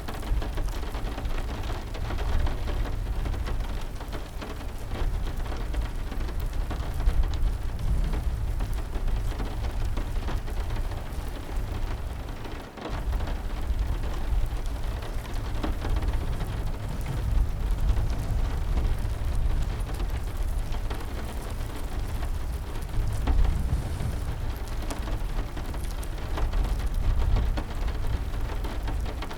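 Steady heavy rain, a continuous patter with many small sharp drops over a deep low rumble. The sound dips briefly about halfway through.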